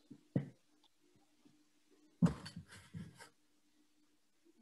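Light clicks and knocks from a plastic squeeze bottle as its cap is fitted and the bottle is handled, with a short cluster of knocks about two seconds in, over a faint steady hum.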